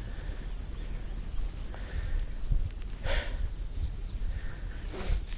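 Insects chirring in a steady, high-pitched band, with a low rumble on the microphone underneath.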